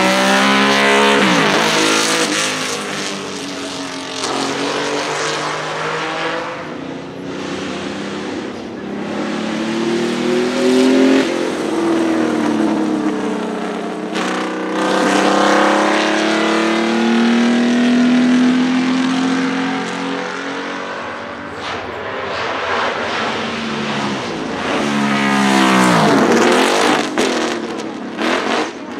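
Ferrari 156 F1 'Sharknose' replica's 1.5-litre V6 racing engine under hard acceleration, going past more than once. Its pitch drops sharply as the car passes, near the start and again near the end, and in the middle the revs climb steadily.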